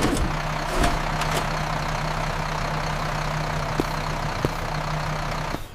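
Bus engine idling steadily, a low hum under an even hiss with a few light clicks; it begins and cuts off abruptly.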